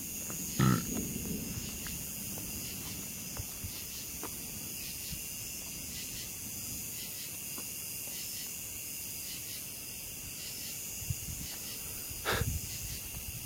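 Steady chorus of night-singing insects such as crickets and katydids, a high, finely pulsing trill. It is broken by two short, loud knocks, one about a second in and one near the end.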